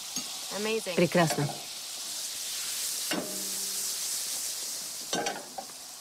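Breaded white fish fillet frying in butter in a pan: a steady, high sizzle, the butter 'singing', which means the fish is still cooking.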